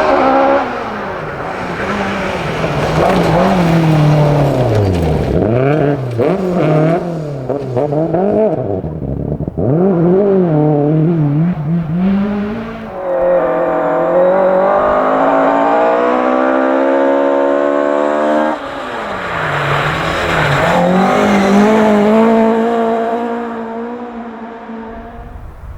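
Ford Escort rally car engine worked hard through the gears. Its pitch swings up and down with the throttle, then climbs steadily for several seconds, drops sharply at a shift, climbs again, and fades near the end.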